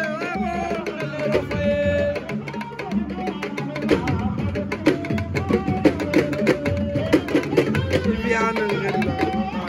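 Fast drumming with a voice singing over it.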